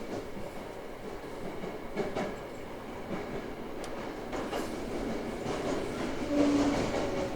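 Toei 5300-series subway car running on the rails, with a steady rumble and a few sharp clicks from the wheels over rail joints. Near the end, the Mitsubishi GTO-VVVF inverter's whine comes in at a steady pitch and the sound grows louder.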